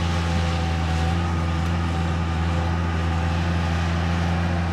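Bobcat 763 skid-steer loader's diesel engine running steadily at constant speed while the loader digs a ditch.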